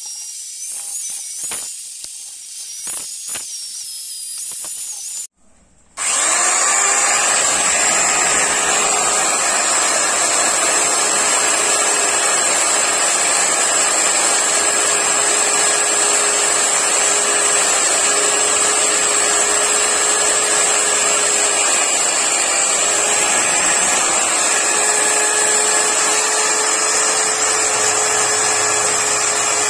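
Electric drill spinning a buffing wheel on an aluminium Yamaha RX100 engine side case, polishing it. For about five seconds its whine wavers in pitch. After a brief drop-out it runs on steadily with a high whine.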